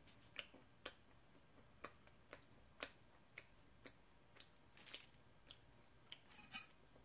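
Faint eating sounds: scattered sharp clicks, roughly two a second, from chewing homemade corn bread and tearing its crust by hand.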